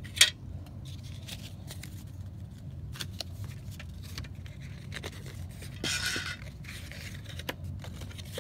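Clear plastic cassette case and its paper J-card being handled and opened: one sharp plastic click about a quarter second in, then scattered small clicks and rustling, with a brief papery scrape around six seconds in.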